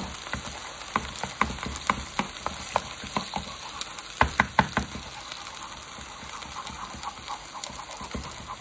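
Eggs sizzling in a hot pan while a metal utensil beats and scrambles them, its edge clicking and scraping against the pan. The clicking is busiest in the first half, with a quick run of loud taps about four seconds in, then eases off.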